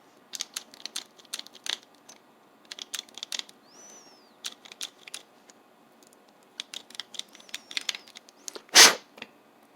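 A countersink bit worked by hand over the pin holes of a lock core to chamfer their edges: a run of small metal clicks and scrapes, with a short high squeak about four seconds in. One louder clack near the end.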